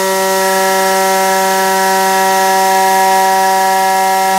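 Haas VM3 CNC mill taking a heavy dry adaptive cut in aluminium with a 1-inch Shear Hog cutter: a loud, steady, high-pitched whine from the spinning cutter that holds one pitch throughout.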